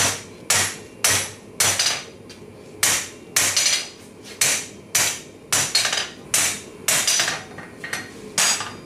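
Hand hammer striking red-hot half-inch rebar on an anvil, drawing it down to a square section: steady blows about two a second, each with a short metallic ring, and a brief pause about two seconds in while the bar is turned.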